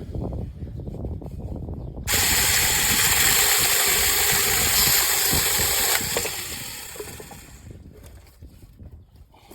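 Cordless electric mini chainsaw starts up suddenly about two seconds in, runs loudly for about four seconds, then winds down.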